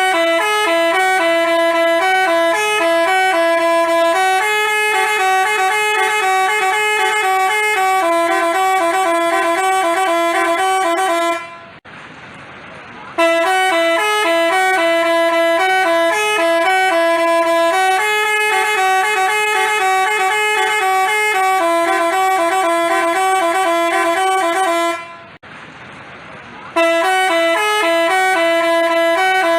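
Basuri telolet multi-tone bus horn playing a tune in quick, even runs of notes. The same phrase stops and starts over twice after short pauses.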